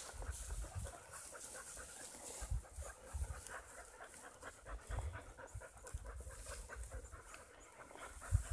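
German Shorthaired Pointer panting quickly and evenly while holding a point, with scattered low, muffled thumps underneath.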